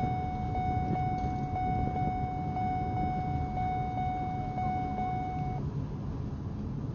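A steady high-pitched tone, held for about six seconds and stopping about five and a half seconds in, over a low rumbling background noise.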